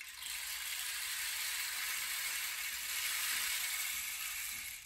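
Rain stick tipped over, its filling trickling down through the tube in a steady, rain-like hiss that fades out near the end.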